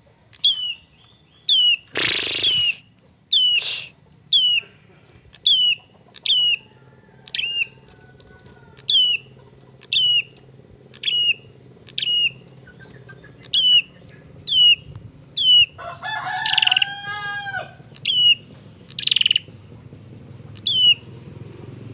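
Prinia (ciblek) calling: a long series of short, high, downward-sweeping chirps, one about every 0.7 s, with a louder, fuller burst of calls near the 16-second mark. Two brief loud rushing noises come in the first four seconds.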